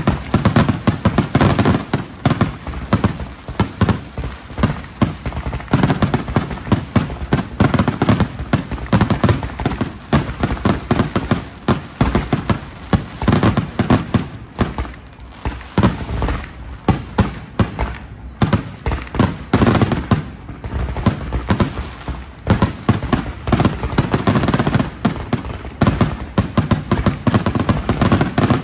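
Aerial fireworks shells bursting in rapid succession: a dense stream of booms and crackles, thinning briefly about halfway through, then thickening again.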